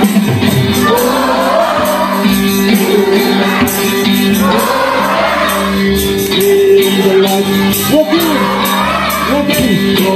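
Loud live worship music: a congregation singing together with scattered shouts, over instruments and percussion that keep a steady beat.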